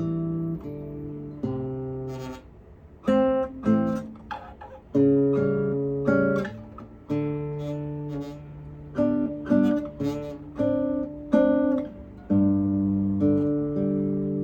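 Guitar played fingerstyle: a melody of plucked notes over sustained bass notes, with a short lull about two and a half seconds in.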